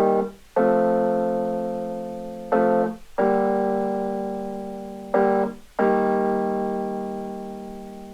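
Sustained piano-like keyboard chords played back through a pair of 1980s KEF Caprice 2 sealed-box loudspeakers, with the amplifier's loudness function off. Each chord strikes and slowly fades, a short chord followed by a longer one, a new pair about every two and a half seconds.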